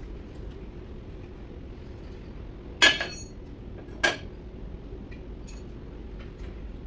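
Two sharp metallic clinks about a second apart, a steel hand tool against metal, each with a brief ring, followed by a few faint ticks. A low steady hum runs underneath.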